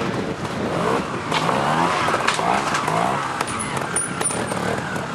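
Trials motorcycle engine blipping the throttle as the bike is ridden over rocks, its pitch rising and falling in short revs, with a few sharp clicks.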